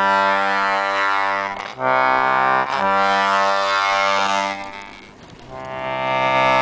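Vintage Hohner accordion sounding held chords as its keys are pressed and the bellows worked, the reeds playing one chord after another with short breaks between them. The sound fades about five seconds in, then a new chord swells up.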